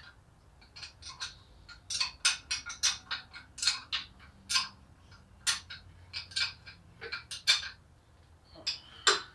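Small metal engine parts clicking and clinking in the hands during top-end assembly of an air-cooled VW engine: a quick, irregular run of sharp metallic ticks and taps.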